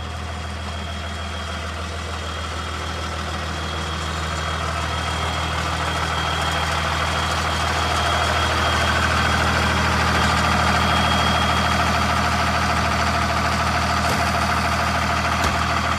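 2001 Sterling truck's engine idling steadily, growing louder over the first half.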